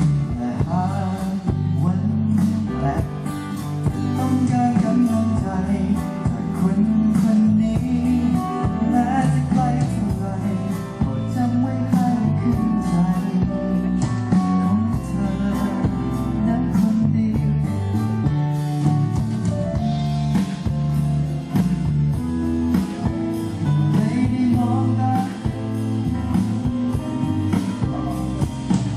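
A live band plays a pop-rock song with electric guitar, bass and drum kit, and a singer's voice over them. The music runs steadily at full level with a regular drum beat.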